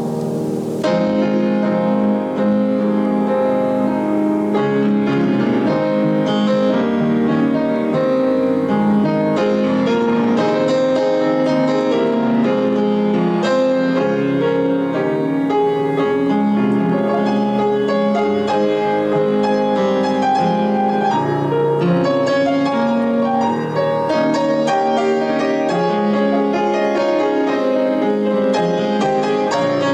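Piano music, held chords and notes moving at an unhurried pace.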